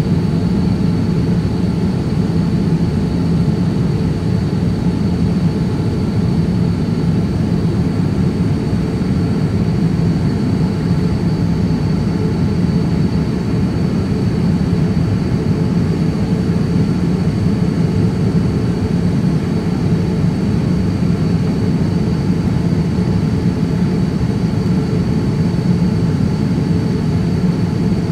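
Cabin noise inside a Boeing 787-9 airliner: a steady low rumble of engines and rushing air, with a thin, steady high whine over it.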